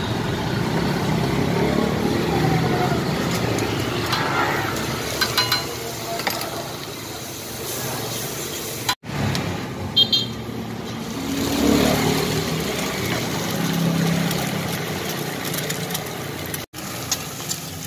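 Steady street traffic noise with light clatter of utensils, and later an egg sizzling as it fries on a hot flat griddle.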